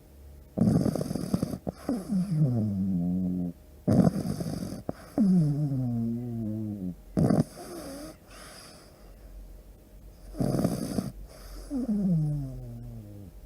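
A sleeping dog snoring: four breaths about three seconds apart, each a rough snort that trails off into a falling whine.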